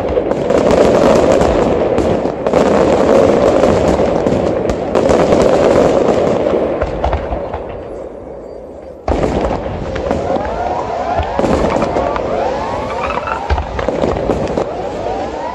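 Aerial fireworks display. For the first several seconds a dense barrage of shell bursts and crackle goes off, then dies away. About nine seconds in, a new volley begins abruptly, full of many overlapping whistles gliding up and down in pitch over the bangs.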